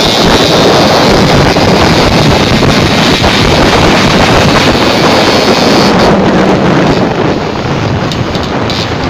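Wind buffeting the microphone over a moving vehicle's running engine, loud and rough; the hiss thins out and eases slightly about six seconds in.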